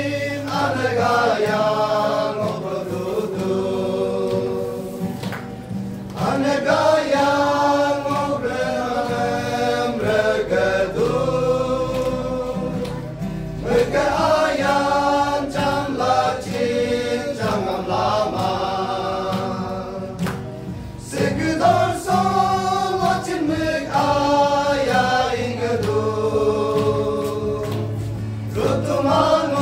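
Men's church choir singing a gospel hymn together in long phrases, with short breaks between phrases about every seven or eight seconds.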